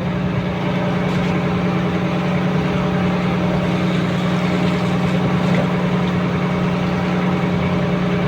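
Small fishing boat's engine running at a steady speed, an even drone with no change in pitch.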